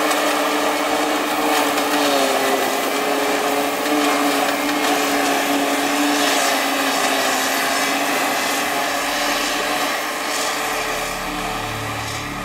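New Holland self-propelled forage harvester running under load while chopping grass for silage: the engine and spinning chopper drum and blower make a steady whining drone, growing a little fainter near the end as the machine moves away.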